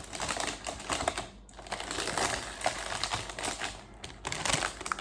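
Plastic model-kit runners in their bags being handled: crinkling plastic with many light clicks and taps of plastic parts.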